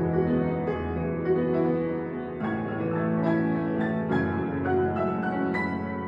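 Solo piano playing a slow melody over held bass notes, with new notes struck every half second or so and each left to ring.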